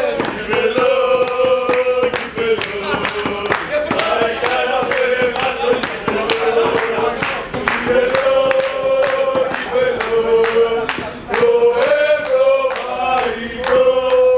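A group of men singing a supporters' chant together in unison, over steady rhythmic hand clapping of about three claps a second.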